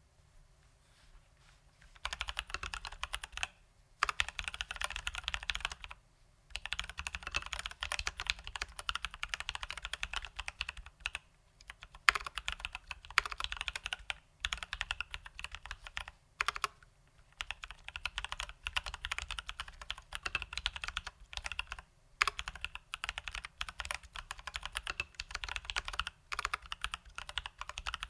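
Fast typing on a Leopold FC980M mechanical keyboard with Durock T1 tactile switches lubed with Krytox 205g0 and stock keycaps. The keystrokes come in runs of a few seconds with short pauses between them.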